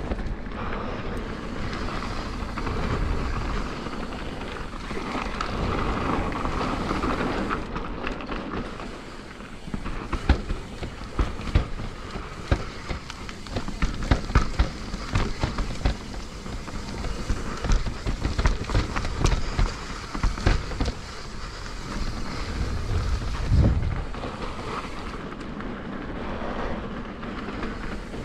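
Mountain bike riding fast down a dirt singletrack: tyres rolling over dirt and roots, with wind buffeting the microphone. Frequent sharp clacks and rattles from the bike over rough ground, thickest in the middle stretch.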